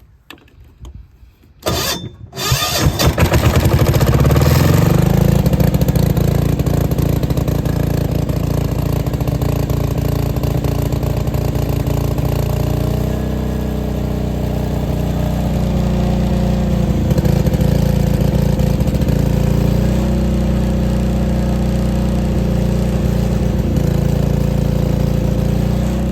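Diesel generator engine, fuelled with a mix of diesel and filtered waste oil, cranking about two seconds in, catching, and settling into a steady run.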